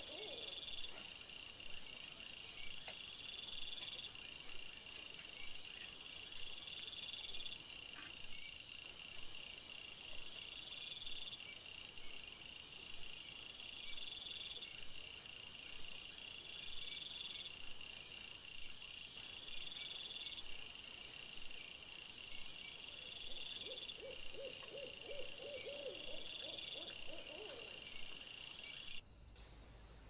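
Night-time insect chorus trilling steadily in repeating high pulses, with a run of short lower calls near the end. It all cuts off about a second before the end.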